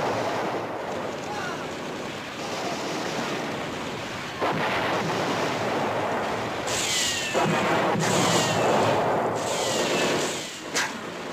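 Film battle sound effects: a steady din of artillery explosions and gunfire, with sharper blasts about four and a half, six and a half, and eight seconds in. Several blasts are followed by short falling whines.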